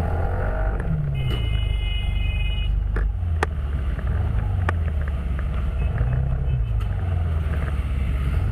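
Steady low engine and wind rumble from a camera riding on a two-wheeler in city traffic. About a second in, a high steady tone like a horn sounds for about a second and a half, and a few sharp clicks come around three to five seconds in.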